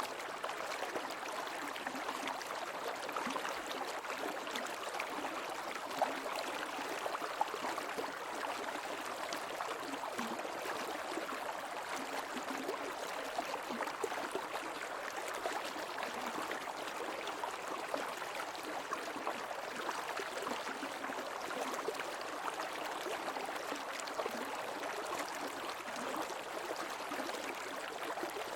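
Shallow creek water running and babbling steadily over stones, a continuous splashing with small trickles and gurgles.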